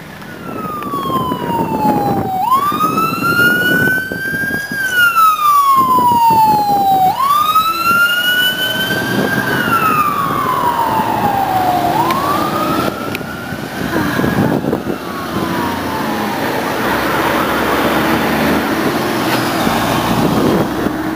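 Emergency vehicle siren wailing, rising and falling in pitch three times, about once every five seconds, then fading out. Steady road and engine noise runs underneath.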